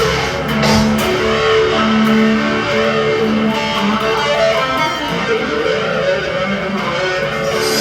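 Electric guitar, a Squier Stratocaster played through a fuzz pedal and reverb into a small Fender amp, playing a slow improvised line of held, distorted notes.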